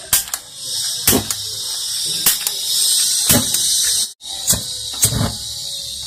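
Hi-Cook portable butane gas torch hissing steadily, with several sharp knocks and clicks of handling. The hiss drops out briefly a little after 4 seconds, then resumes.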